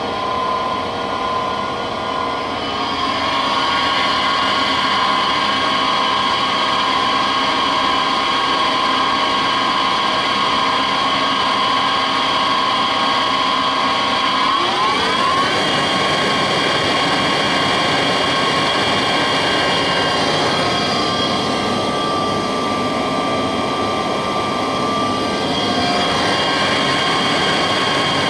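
Bridgeport EZ Path SD lathe running under power, a steady mechanical whine from its 10 HP direct-drive spindle. About halfway through the pitch rises over a second or so, as the spindle speeds up, and then holds steady.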